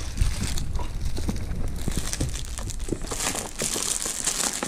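Clear plastic wrapping crinkling as a stroller umbrella sealed in it is handled and unwrapped, growing louder about three seconds in.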